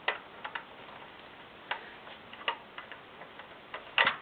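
LEGO plastic pieces clicking and tapping as they are handled and pressed into place: a scattering of sharp, irregular clicks, with the loudest cluster near the end.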